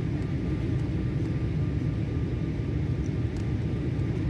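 Steady cabin noise inside an Embraer E-170 airliner on approach: the even low rumble of its General Electric CF34 turbofan engines and the rush of air over the airframe, with a faint steady high tone.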